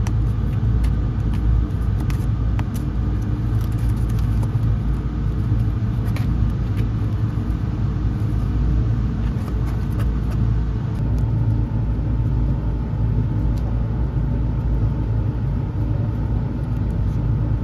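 Steady low rumble of a running engine, with a few light clicks over it.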